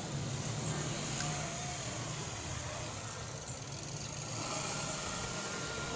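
A steady engine hum, like a motor vehicle running, with a thin steady tone coming in about four and a half seconds in.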